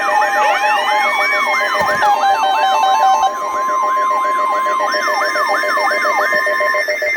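Several siren and alert tones layered together as an emergency-alert opening: a fast wailing siren sweeping up and down about three times a second, a steady high tone, and stuttering beeps. The wail and the steady tone stop shortly before the end.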